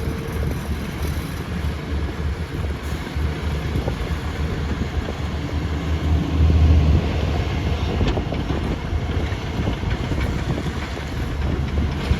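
Diesel engine of a Tata Hitachi excavator running steadily with a low drone, which swells briefly about six seconds in.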